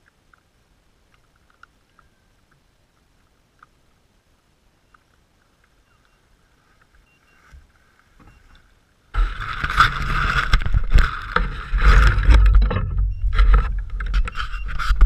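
Near quiet with a few faint ticks, then about nine seconds in a sudden loud rumbling and rustling of the action camera being picked up out of the grass and handled, its housing rubbing against the microphone.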